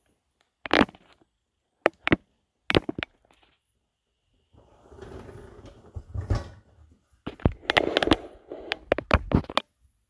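Dishwasher racks and the dishes in them being handled: a few sharp knocks and clicks, a rustling stretch midway, then a quick run of clattering near the end.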